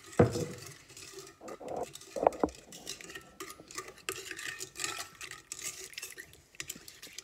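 A silicone spatula stirring warm water, sugar and yeast in a stainless steel KitchenAid mixer bowl: light scraping and clinking against the metal. There is a louder knock just after the start and a couple more about two seconds in.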